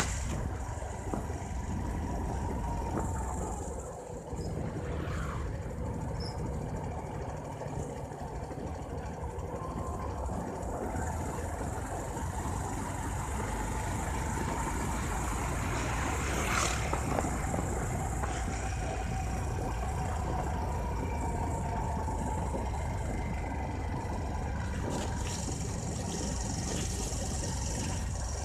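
Bajaj Discover 150F motorcycle's single-cylinder four-stroke engine running steadily while riding, with wind and road noise on the phone's microphone. The sound dips briefly about four seconds in.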